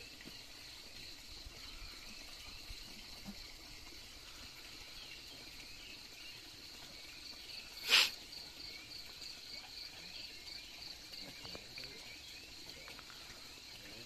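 Insects chirring steadily in an even, pulsing rhythm, with one short, sharp knock about eight seconds in.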